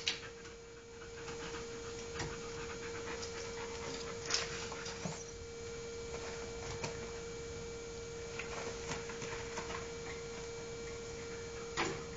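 Samoyed panting, with scattered light clicks and taps over a steady hum.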